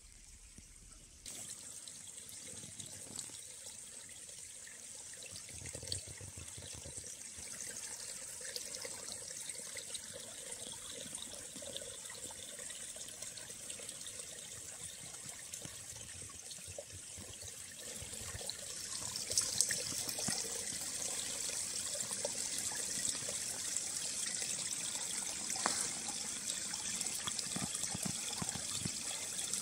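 Small woodland stream trickling steadily over leaves and branches, growing louder about two-thirds of the way in.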